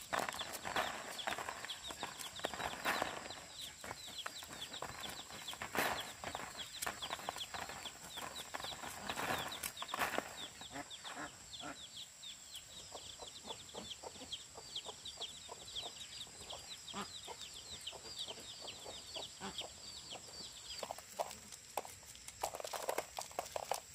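Chickens clucking, with a dense run of rapid, high, falling peeps through the middle stretch, over a thin steady high tone.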